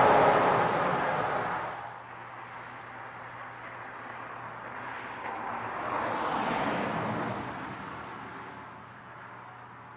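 Vehicles passing at highway speed: one fades away in the first two seconds, then another approaches, is loudest about six to seven seconds in, and fades out.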